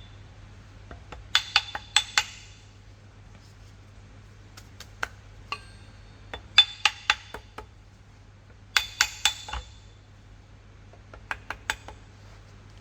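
Light taps knocking a metal part into place on a dodgem's drive assembly, in four quick groups of three or four sharp, ringing clinks.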